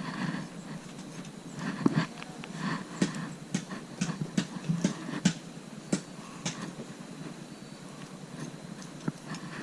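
Skinning a raccoon: a knife working and the hide being pulled free around the head, heard as an irregular run of short clicks and scrapes, busiest in the middle.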